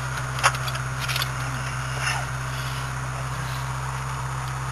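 A car engine idling steadily with a low hum. About half a second in there is a sharp click, then a few lighter clicks and scrapes as a car battery is handled.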